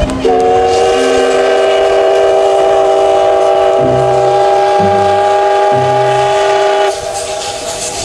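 Steam locomotive whistle sounding one long, steady chord of several tones for nearly seven seconds, then cutting off into a steady rushing noise.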